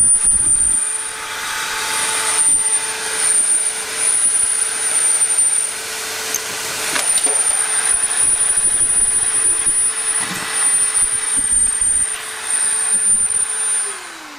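Aldi Workzone 1500 W wet and dry shop vacuum running at full suction, a steady motor drone with a high whine and a few clicks partway through. Near the end it is switched off and the motor starts to wind down, its pitch falling.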